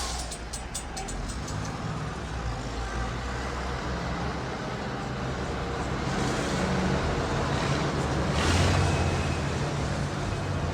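Recorded sound effect of a motor vehicle engine running with a steady low hum, growing louder to a peak with a hiss about eight to nine seconds in.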